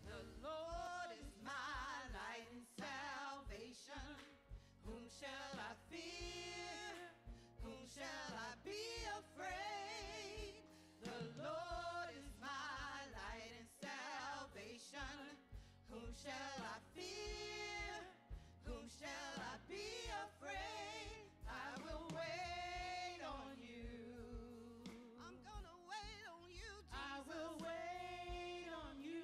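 Several women singing a gospel worship song with vibrato, accompanied by keyboard and band.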